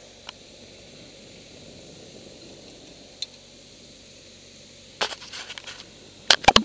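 Steady hiss with a few clicks, then a cluster of rustling clicks about five seconds in and several sharp knocks near the end: a tower climber's gloved hands and gear handling the steel tower members close to a head-mounted camera.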